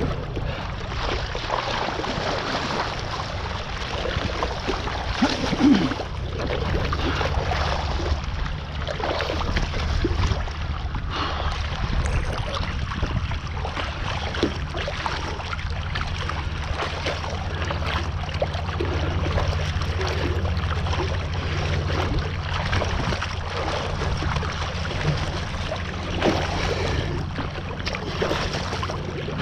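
Wind rumbling on the microphone over a steady wash of rushing water and spray, the sound of riding a kite hydrofoil board over the water. There is a louder thump about six seconds in.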